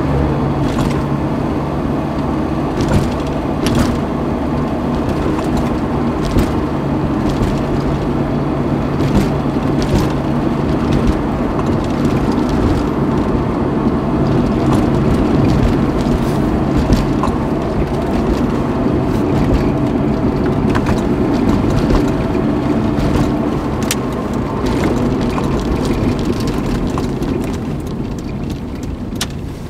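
Cabin noise inside a ZAZ Slavuta on the move: the engine running, tyres on asphalt, and frequent clicks and knocks from rattling body and trim panels, with almost no sound insulation. The noise eases near the end.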